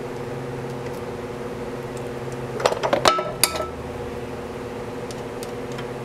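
Hand tools clinking against metal several times in quick succession, about two and a half to three and a half seconds in: a wrench and screwdriver working the valve lash adjusters on a golf cart engine's rocker arms. A steady hum runs underneath.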